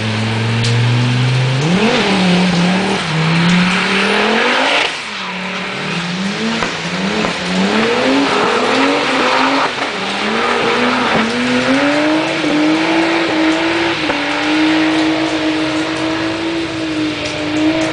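Drift car's engine revving hard while the car slides round a wet track, the pitch climbing and dropping again and again in quick rises. About five seconds in it briefly drops away, and in the last few seconds it holds a steady high note.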